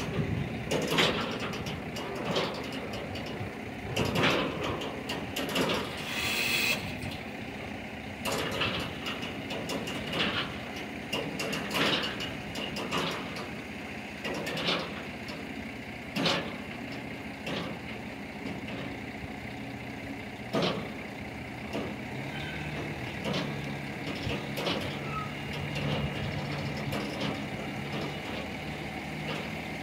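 Tilt-deck truck running steadily as it backs its tilted bed against a steel shipping container, with frequent sharp knocks and a short hiss of air about six seconds in. The engine note rises a little past the middle.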